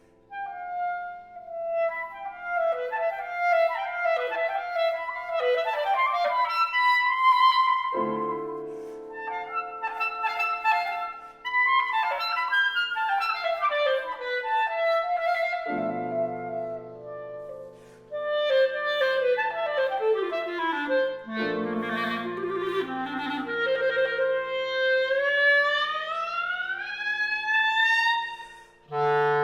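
Clarinet and piano playing classical music: the clarinet plays fast runs and flurries of notes over piano chords that come in about eight seconds in and again later. Near the end the clarinet climbs in a long, smooth rising glide.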